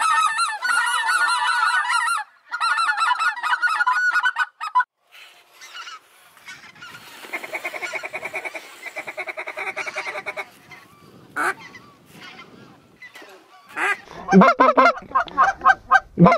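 A flock of geese honking as they fly overhead, many overlapping calls. The calling is loud for the first few seconds, fainter in the middle, and loud again near the end.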